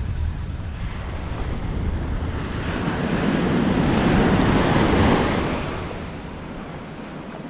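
Ocean surf breaking and washing up the beach, swelling to a peak about four seconds in and then fading, with wind buffeting the microphone.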